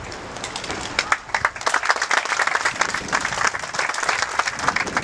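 A crowd of spectators applauding, the clapping thickening about a second in.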